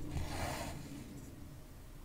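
Cotton embroidery thread drawn through 14-count cross-stitch fabric: one brief rustling swish in the first second, then faint low background hiss.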